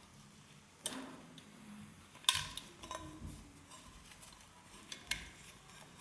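A few sharp metallic clicks and clinks from a flooring strap clamp's ratchet buckle being handled as the strap is fed through it. The loudest click comes about two seconds in.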